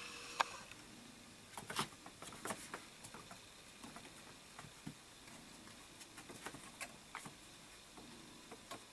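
Kittens scuffling on the floor and batting at a piece of paper: soft, scattered taps and rustles at an irregular pace.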